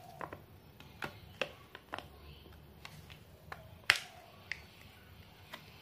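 Light clicks and taps from a thin clear plastic panel being handled and fitted against a small wooden box, about ten sharp clicks at uneven intervals, the loudest just before four seconds in.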